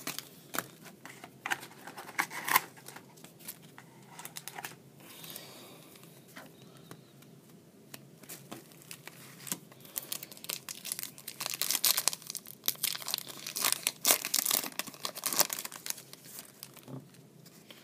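Foil baseball card pack wrapper being torn open and crinkled by hand, in uneven crackly bouts with a busier stretch past the middle.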